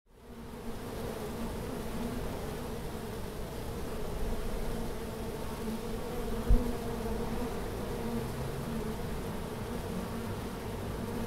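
Honeybees buzzing in flight around their hive: a steady hum that fades in at the start, with one brief low thump about halfway through.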